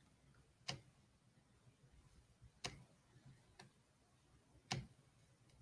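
Near silence broken by three sharp single clicks about two seconds apart, as from a computer mouse being clicked to bring up a document on screen.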